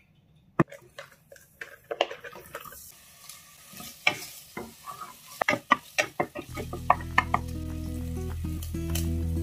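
Diced meat sizzling in hot olive oil in a metal stockpot, with a wooden spoon stirring, scraping and knocking against the pot. A sharp knock comes about half a second in. Background music with held notes comes in about two-thirds of the way through.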